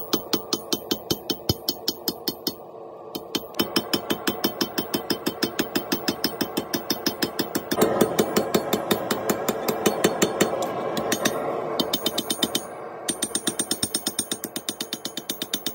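Hand hammer striking red-hot steel on an anvil in a quick, even rhythm of about four to five blows a second as a blade is forged, with short breaks about three seconds in and near the end. A steady mechanical hum runs underneath, growing thicker about halfway through.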